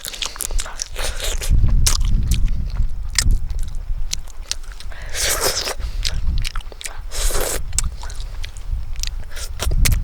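Someone biting and chewing food, with crunches and sharp clicks, over a low rumble that starts about a second and a half in.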